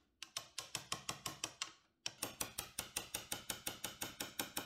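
Steel chisel scraping old glue residue off an acrylic portlight lens in quick, short strokes, about six a second, with a brief pause about two seconds in.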